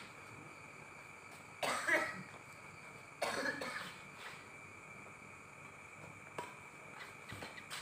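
A person coughing twice, about a second and a half apart, then one short sharp tap about six seconds in, like a badminton racket striking a shuttlecock.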